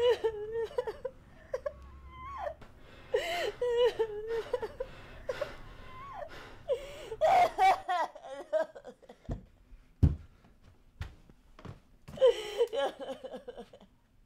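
A woman's voice in convulsive, wavering outbursts, four of them, with quieter breathy sounds between. Two dull thumps come about two-thirds of the way through.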